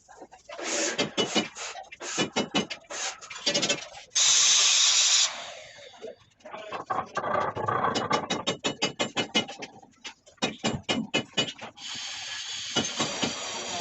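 Hand tools scraping and rubbing on stone and mortar in quick repeated strokes, with a short loud hiss about four seconds in and a fast run of strokes later on.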